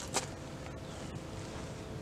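Outdoor background rumble with wind on the microphone and a faint steady hum, with one short rustle just after the start.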